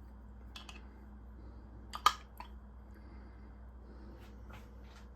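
Mint sauce being added to a bowl of tikka marinade: mostly quiet, with a few faint clicks and one sharper click about two seconds in, over a faint steady hum.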